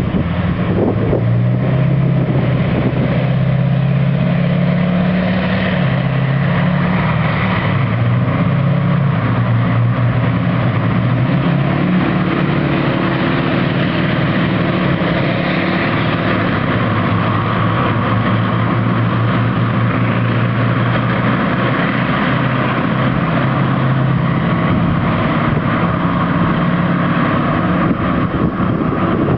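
Tracked armoured vehicles driving along a road: their engines running with a steady low drone and their tracks rumbling on the tarmac.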